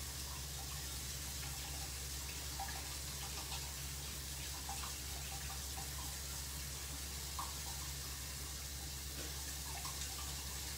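Kitchen tap running steadily at the sink, the water left to run until it comes out hot, with a low steady hum underneath.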